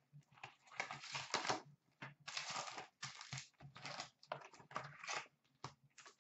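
Hockey card packs and their box being handled, the pack wrappers rustling and crinkling in short, irregular bursts.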